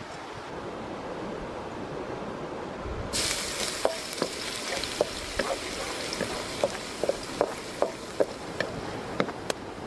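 Chopped garlic frying in oil in a wok: a sizzle that starts suddenly about three seconds in, with a wooden spatula scraping and knocking against the wok about twice a second.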